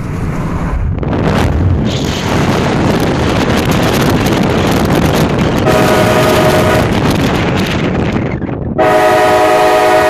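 Nathan Airchime K5LA five-chime train horn sounding a chord: a short blast about six seconds in, then a longer, louder blast starting near the end. Beneath it is a loud, steady rushing noise of wind and road noise from the moving car.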